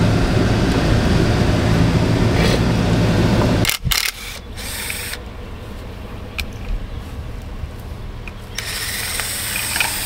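Pickup truck driving over rough ground, a steady low rumble heard from inside the cab; it cuts off suddenly about four seconds in. After a stretch of quieter outdoor ambience with a few light clicks, a cordless drill runs for about a second and a half near the end, driving a screw into a palm trunk.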